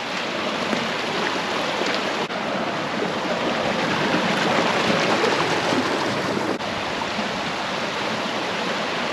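Small stream running steadily: an even rush of flowing water.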